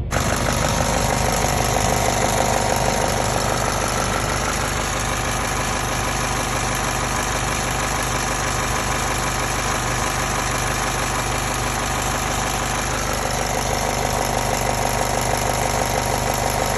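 2007 Honda Civic Si's four-cylinder engine idling with a steady, rapid metallic rattle, which the owner takes for noisy valves on a high-mileage engine.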